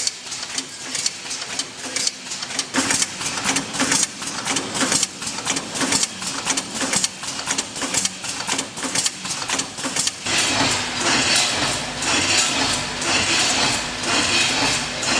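Automatic combination weighing and packing machine for finger biscuits running, with quick, irregular clicking and knocking. About ten seconds in, a louder, denser mechanical din sets in.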